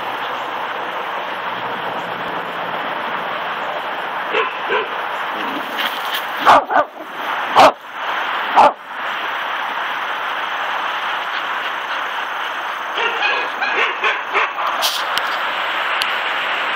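Shetland Sheepdog/Collie mix barking in bursts over a steady background hiss: a few short barks a quarter of the way in, three loud sharp barks in quick succession near the middle, then a flurry of short yips later on.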